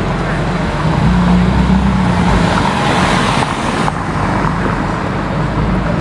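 Ferrari sports car's engine running at low speed as the car pulls slowly into street traffic, a steady low rumble with a passing rush of traffic noise a few seconds in.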